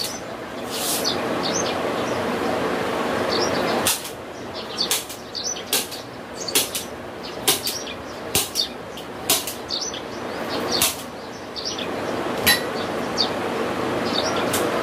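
Irregular taps and knocks, roughly one a second, as hands press and pat a mosquito net's fastening strip onto a wooden window frame, over a steady hiss.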